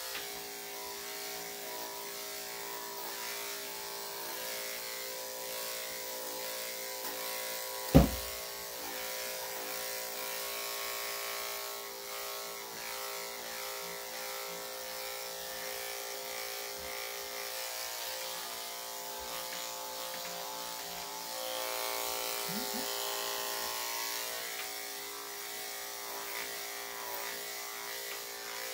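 Corded electric dog-grooming clippers running with a steady hum as they shave through a dog's body coat. A single sharp knock sounds about eight seconds in.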